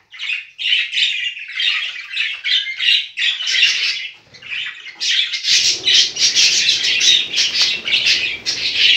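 Budgerigars chattering and squawking continuously in a dense stream of short, scratchy calls.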